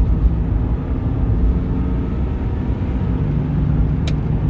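Cabin noise of a 1989 Jaguar XJ6 speeding up toward 60 mph: a steady low engine and road rumble, with a single click near the end. No bad driveline noise stands out; the newly replaced driveshaft carrier bearing is running smooth.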